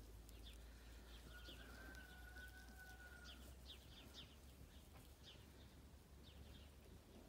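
Faint bird chirping: repeated short, high, falling chirps, several a second, with one longer steady whistled note starting about a second in and lasting about two seconds.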